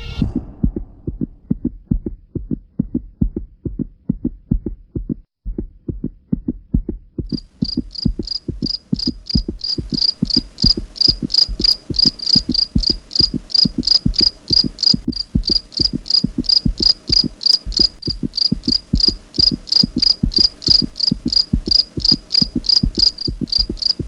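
Rhythmic low thumping, about three beats a second. About seven seconds in, a high insect-like chirping joins it, pulsing at the same steady pace.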